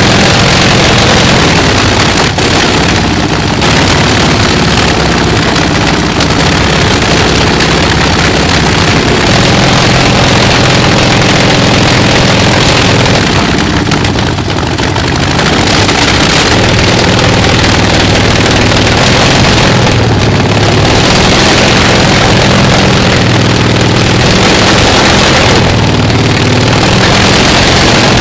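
Soviet ASh-62IR nine-cylinder radial aircraft engine running loud and steady on a test stand through short open exhaust pipes, dipping briefly in level about halfway through.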